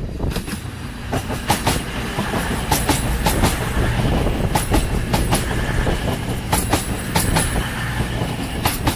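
CrossCountry Voyager diesel multiple unit passing close at speed. A steady rumble of its underfloor diesel engines and rolling wheels is crossed by a rapid run of sharp clicks, often in pairs, as the wheels pass over joints in the track.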